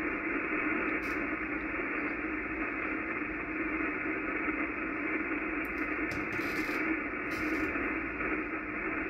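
Steady 80-metre band noise hissing from an Icom IC-746PRO HF transceiver's receiver on lower sideband, with no station transmitting on the frequency.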